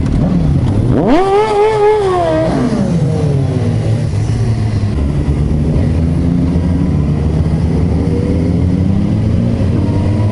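Motorcycle engines pulling away from a standstill. One engine revs hard about a second in, holds its high note briefly, then falls away. Steadier running of several bikes follows, with revs climbing again near the end.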